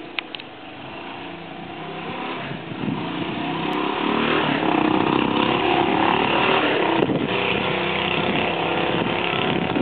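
An engine running, growing louder over the first four seconds and then holding steady.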